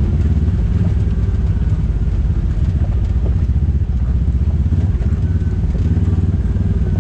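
Side-by-side UTV's engine running steadily as it drives along a dirt trail, heard from inside the cab.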